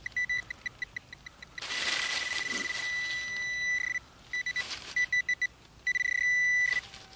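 Garrett handheld pinpointer beeping in the dig hole: quick pulses of a high tone, about six a second, that run together into a steady tone twice, as it closes in on buried metal. Hands scrape and rustle through leaves and soil under the beeping.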